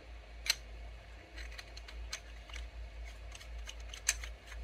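Light metallic clicks and ticks as the parts of an 89sabers Mace Windu V2 lightsaber hilt are handled and twisted together, with two sharper clicks, about half a second in and near the end.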